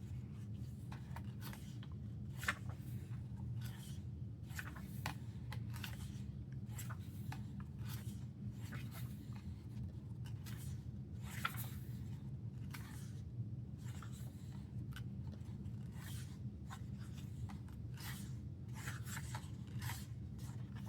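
Glossy pages of an album photobook being handled and turned: short, irregular rustles and slides of paper, over a steady low hum.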